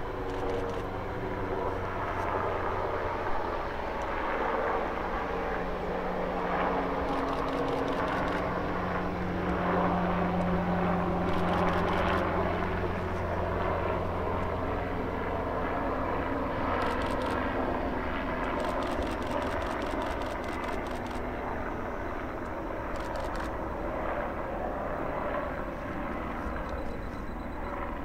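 Large military helicopter flying past, its turbine and rotor sound steady, swelling to its loudest about ten to twelve seconds in, then easing off.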